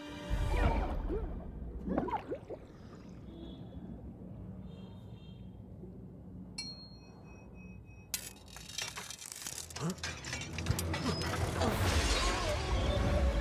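Film action sound effects: scattered clicks and clinks, then a sudden crash about eight seconds in that turns into shattering glass and gushing, splashing water, growing louder toward the end.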